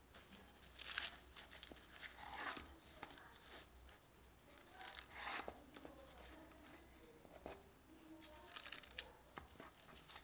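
Parchment paper rustling and crinkling as a gloved hand turns baked scones over in an air fryer basket, in faint, irregular bursts.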